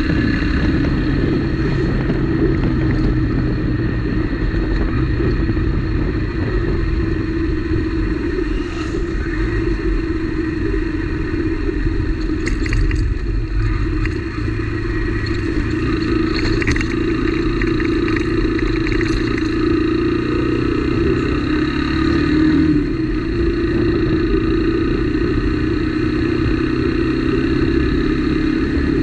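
Motorcycle engine running steadily under way, with wind rumble on the microphone. Rattles and knocks come in the middle as the bike crosses a rough, broken stretch of road.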